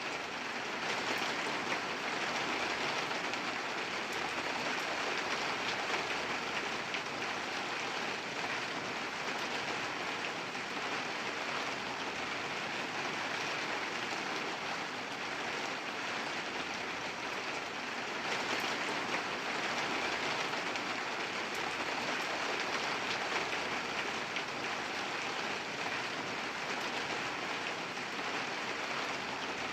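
Rain falling steadily, an even hiss that swells slightly a couple of times.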